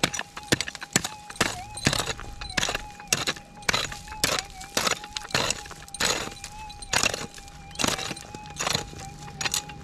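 Footsteps on stony ground, about two a second. Under them runs the steady, slightly wavering threshold tone of a Minelab GPX 6000 gold detector.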